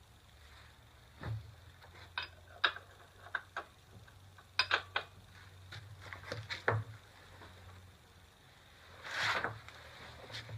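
Metal wrenches clinking and tapping as they are fitted onto a motorcycle's rear axle nut to loosen it: a series of sharp, irregular clinks, with a longer, rougher noise near the end.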